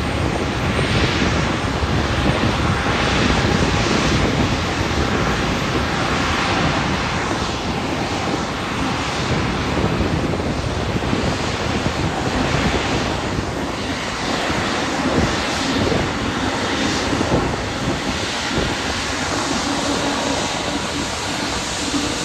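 The Rolls-Royce Trent XWB turbofans of a taxiing Airbus A350-900 running at low taxi thrust. They make a steady rushing jet noise that swells and eases slightly.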